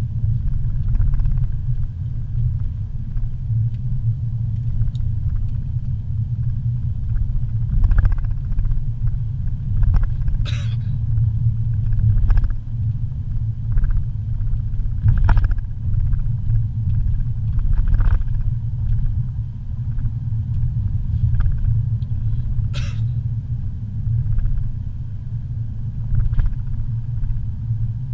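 Car driving at low speed, heard from inside the cabin: a steady low rumble of engine and road noise, with a few short clicks and knocks scattered through.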